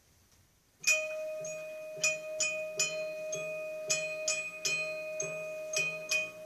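Front-ensemble mallet keyboards (marimba and vibraphone) start playing about a second in after a near-silent pause: a run of struck notes over a long ringing note.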